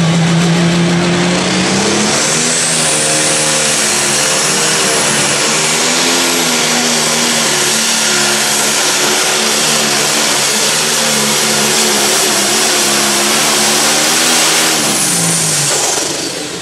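John Deere Pro Stock pulling tractor's turbocharged diesel engine under full throttle through a pull. The revs climb about two seconds in and hold steady, with a high turbocharger whine above them. Near the end the engine and the whine fall away as the tractor lets off.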